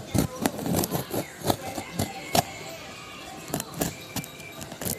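Irregular clicks, knocks and light rattles of hard objects being handled.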